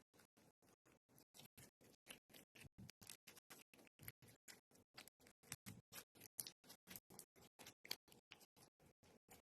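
Faint, rapid, evenly spaced clicking, about five clicks a second, with a few louder clicks among them.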